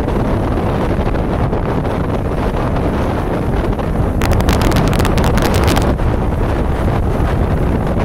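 Strong wind rumbling on the microphone over rough, breaking waves. About four seconds in, a louder crackling gust lasts for under two seconds.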